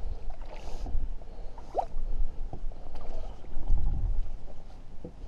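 Gusty wind rumbling on the microphone, with water splashing and sloshing as a fishing landing net is swished in the lake and lifted out.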